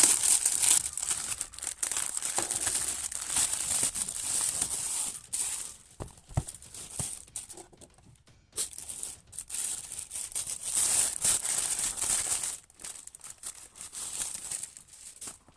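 Parcel packaging being opened by hand, crinkling and tearing in uneven spells, with a lull around the middle.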